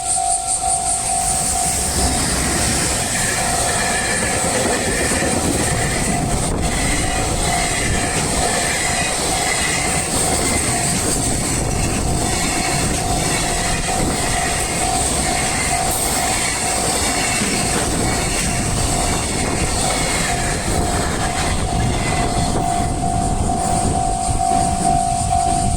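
Level crossing warning bell ringing steadily as a train runs through the crossing from about two seconds in, its wheels rumbling and clattering rhythmically over the rail joints.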